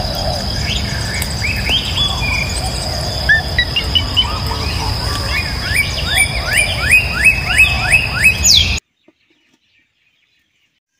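Birds chirping over a steady high insect trill. The chirps come thicker near the end, about three a second, then all sound cuts off abruptly.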